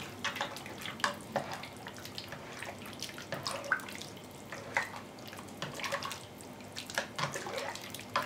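Soup being stirred with a spoon in a multicooker's inner bowl: the liquid sloshes and splashes, with irregular light clicks of the spoon against the bowl.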